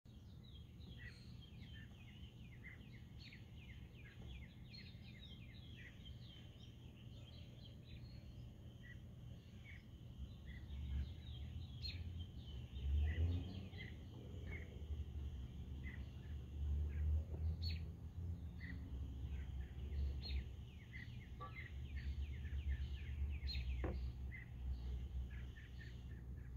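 Birds chirping: many short, quick falling chirps, over a faint low rumble that swells in uneven gusts from about halfway through.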